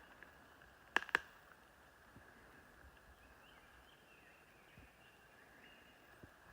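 Two sharp clicks in quick succession about a second in, over quiet woodland ambience with faint distant bird calls.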